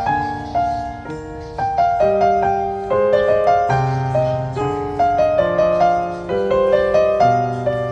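Background piano music: a gentle melody of notes struck a few times a second over sustained chords.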